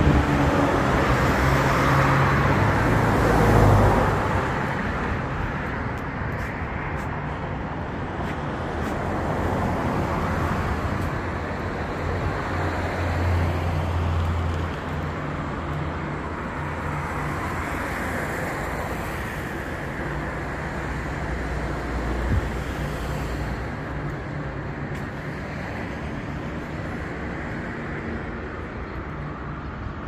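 Road traffic: cars and other motor vehicles passing on a city road, loudest in the first few seconds as a vehicle goes by, then a steadier traffic rumble with engine hum.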